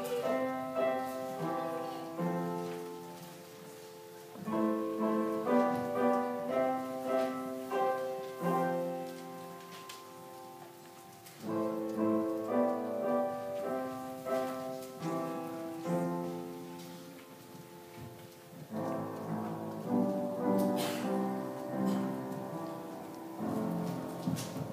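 Piano playing a slow piece in phrases of struck notes that ring and die away, swelling and fading every few seconds, heard from the pews of a church sanctuary.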